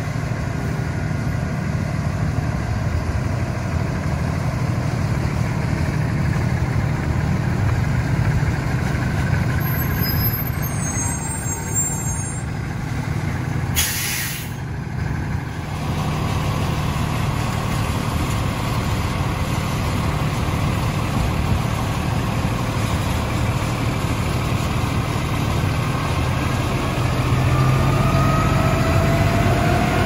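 A fire engine's diesel engine running steadily at idle, with a brief break about halfway through. Near the end it gets louder and its pitch rises as the engine is revved up to drive the fire pump.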